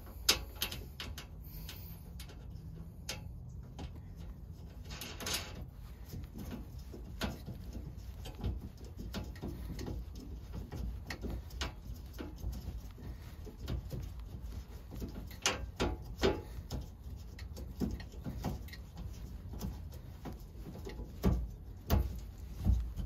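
Hands working metal mounting hardware behind a perforated steel MOLLE panel: irregular small clicks, scrapes and knocks, with a brief rustle about five seconds in and a few louder knocks near the middle and near the end.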